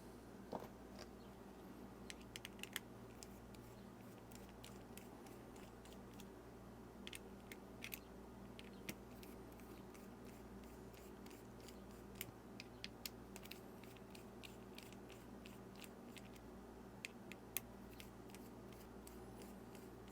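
Faint, scattered light clicks and taps of small hand tools and watch parts while a G-Shock watch is opened and its module worked out of the resin case, over a low steady room hum. The clicks come in small clusters a few seconds apart.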